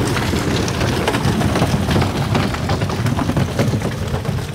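A mass of live catfish thrashing in a rusted metal tank in reaction to salt poured over them: a dense, continuous patter of wet slaps as the fish writhe against each other and the tank sides.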